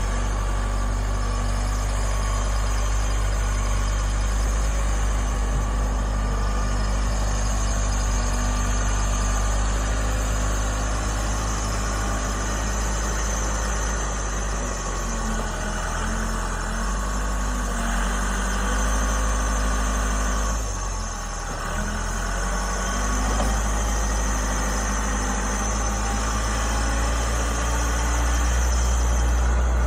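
Backhoe's diesel engine running steadily while plowing snow. It eases briefly about two-thirds of the way through and grows louder near the end.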